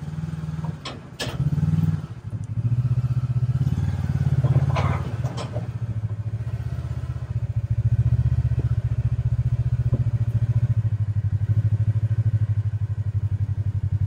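Side-by-side UTV engine running as the machine is driven slowly, with a few sharp knocks and clunks in the first few seconds, then settling into an even, rapidly pulsing idle.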